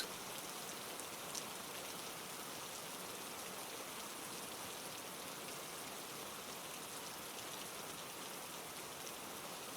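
Steady rainfall, a soft even hiss of rain with a few faint drop ticks.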